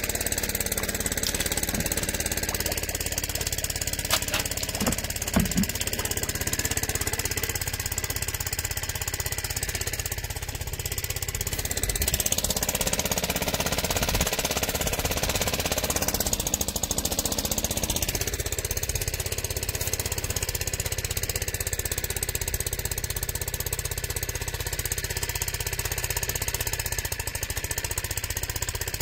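Small gasoline engine driving a transfer pump, running steadily with a fast rattling beat, with a brief change in its sound midway. It is laboring under load pumping thick, cold sugar syrup and running slower than the owner expects; he suspects the cold syrup or something plugged in the hose.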